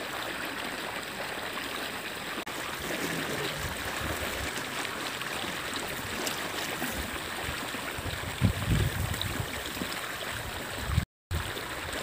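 Water trickling steadily through a narrow paddy-field drain as it is let out to leave the fish behind, with hands sloshing in the shallow muddy water and a few low thumps about eight to nine seconds in.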